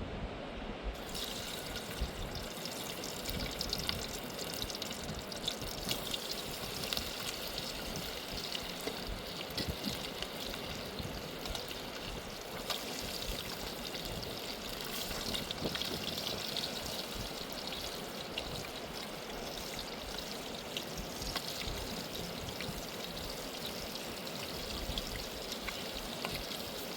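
Rushing river water running steadily, with splashing and trickling close by; the sound gets fuller about a second in.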